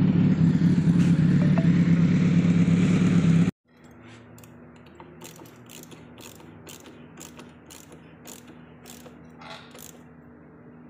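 Motorcycle engine running loud and steady, cut off suddenly about three and a half seconds in. Then a ratchet wrench clicks lightly, about two to three clicks a second, as a bolt on the motorcycle is worked.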